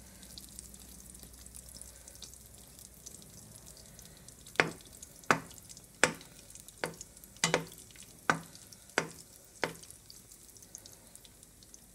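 Float bake dough frying in shallow oil with a low, steady sizzle. From about halfway, a slotted spoon basting the bakes with hot oil knocks against the pan in about eight sharp clicks, roughly one every 0.7 seconds.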